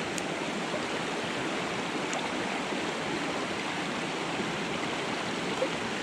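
Mountain creek running high and fast, a steady rush of water over rocks.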